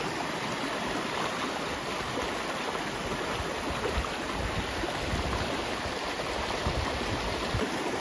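Shallow rocky river rushing over small rapids: a steady rush of water.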